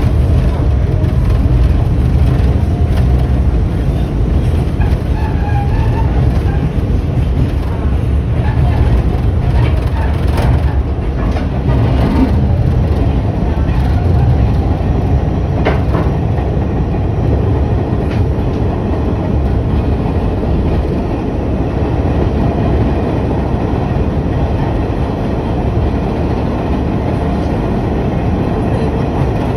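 New York City subway train running on its rails, heard from inside the car: a steady low rumble of wheels and running gear, with a few sharp clacks over rail joints.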